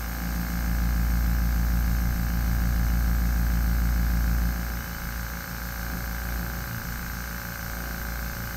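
Fortress 1-gallon ultra quiet oil-free air compressor running continuously with a steady, fast-pulsing hum while air is drawn off the whole time. A low rush sits under it and drops away about four and a half seconds in.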